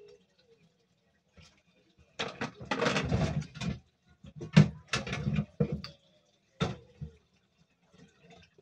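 Thick waffle batter being spooned into a corn dog waffle maker: wet plops, scrapes and taps of the spoon, in several short bursts with a few sharp clicks.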